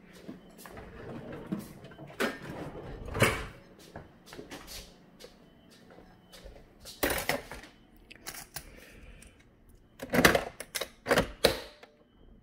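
Scattered knocks and clatters of things being handled and set down: the loudest come about 3 s in, about 7 s in, and in a quick cluster from about 10 to 11.5 s.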